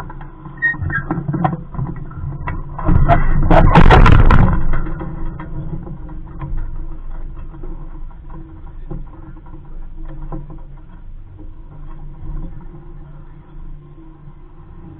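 Small Coronado 15 sailboat under way in a light breeze: scattered knocks and clicks from the boat and its rigging, with a loud rumbling burst about three seconds in that lasts about a second and a half.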